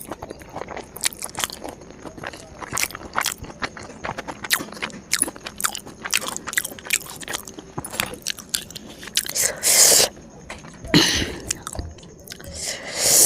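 Close-miked eating: chewing with many quick, sharp crunches and wet clicks. Three louder, longer noisy bursts come in the last few seconds.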